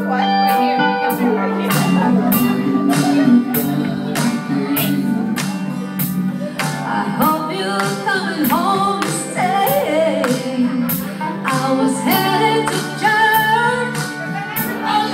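Karaoke: a pop backing track with a steady beat played loud over a PA, with a woman and a man singing along into microphones.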